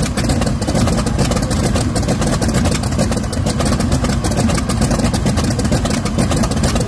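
Supercharged 18-cylinder twin-row Curtiss-Wright R-3350 radial aero engine running steadily and loudly, a rapid stream of exhaust pulses.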